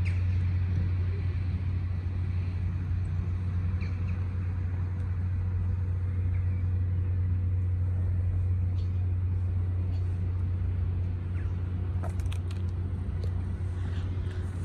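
A steady low engine hum, unchanging throughout, with a few faint clicks near the end.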